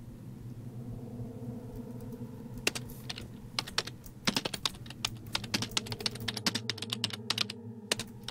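Typing on a computer keyboard: irregular key clicks that start about two and a half seconds in, over a low steady hum.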